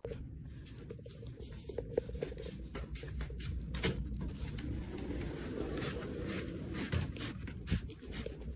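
Deer chewing crunchy treats right at the microphone: irregular crisp crunches and clicks over a low rumble.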